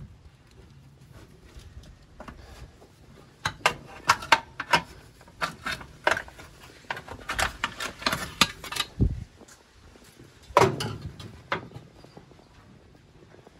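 Metal hand tools and bolts clinking against a Holden 308 V8's rocker cover and head as the cover is unbolted: a busy run of sharp clinks in the middle, then a dull thud and a louder metal clatter about ten and a half seconds in.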